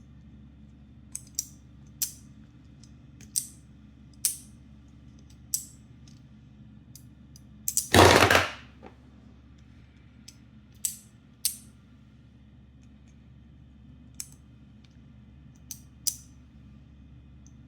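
Sharp metal clicks and clacks from a Wanwu V-Blood multitool being handled, about a dozen at irregular intervals, with one louder rasping clack lasting about half a second around eight seconds in.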